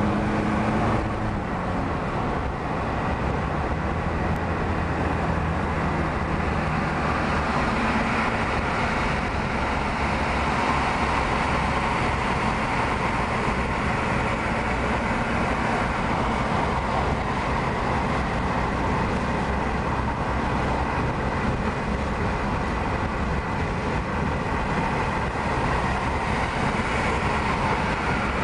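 Steady road and tyre noise with engine hum, heard from inside the cabin of a car cruising at highway speed.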